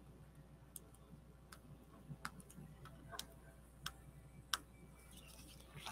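Faint, irregular clicks and taps of small paper craft pieces being handled and pressed onto a card on a table, several in all with short pauses between.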